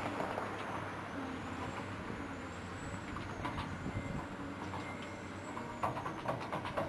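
Caterpillar 365C L hydraulic excavator's diesel engine running steadily while it swings and works a bucket of dirt during backfilling, with a run of sharp knocks near the end.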